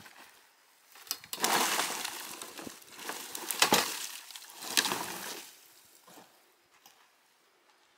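Dry cut branches crackling and snapping as they are handled, in a busy run of sharp cracks that starts about a second in and dies away after about five seconds.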